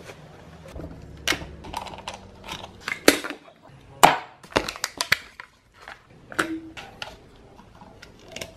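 Handling noise from a 9-volt battery and a Røde on-camera microphone: a string of sharp clicks and knocks with light rustling between them, the loudest about three and four seconds in.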